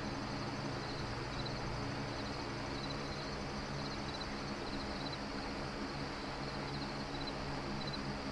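Steady ambient soundscape: a low hum over a soft hiss, with short high chirps like insects repeating about twice a second.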